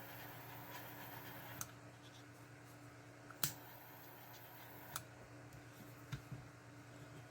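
About five short, sharp clicks and taps of small parts being handled, over a steady low hum from an electric fan running in the room.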